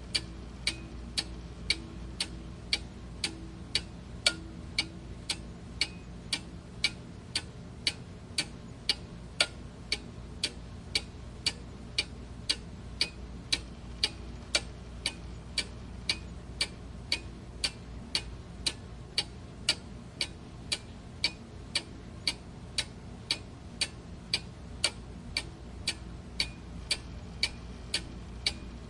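A clock ticking steadily, about two ticks a second, over a faint low hum.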